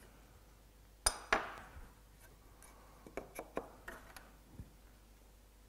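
Steel marking-out tools clinking against each other and the bench: two sharp metallic clinks with a short ring about a second in, then a run of lighter clicks and taps.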